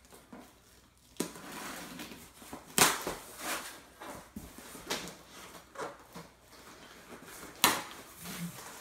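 Scissors cutting through packing tape and cardboard on a shipping box: a series of irregular scraping, tearing strokes, with two louder, sharp ones about three seconds in and about eight seconds in.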